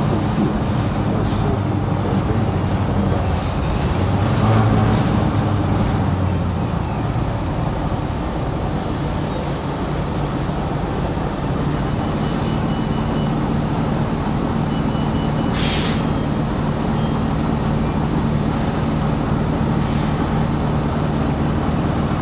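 2020 New Flyer XD60 articulated diesel bus heard from inside while under way: a steady engine and drivetrain drone with road noise. About two-thirds of the way through comes a short, sharp air hiss from the bus's pneumatic system, with fainter hisses earlier.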